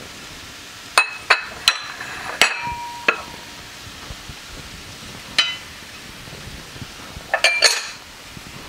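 Ceramic bowls and dishes clinking and knocking as they are set down and handled: a few sharp knocks about a second in, one that rings briefly about three seconds in, another past the middle and a quick cluster near the end. Under them a faint steady hiss of mushrooms and onions frying in the pan.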